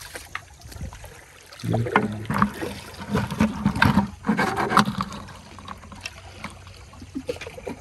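Seawater trickling and sloshing around shoreline rocks, louder for a few seconds in the middle.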